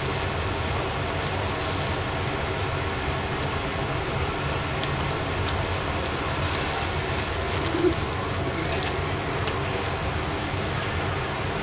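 A steady mechanical hum with a low rumble, with faint clicks of chewing a sandwich now and then.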